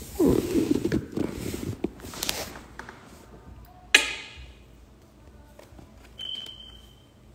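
Shuffling and handling noise, then a single sharp knock about four seconds in that rings briefly. A little after six seconds comes a short, thin, high-pitched steady tone.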